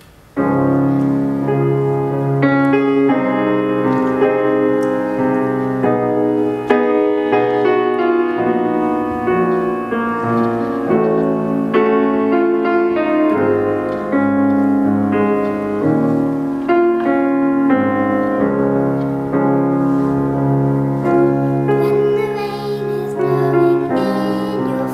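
Piano music starts about half a second in and plays on steadily, with chords and a moving melody.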